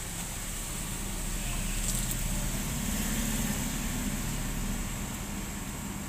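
Split air conditioner's outdoor unit running: a steady low hum with hiss, swelling slightly for a few seconds in the middle.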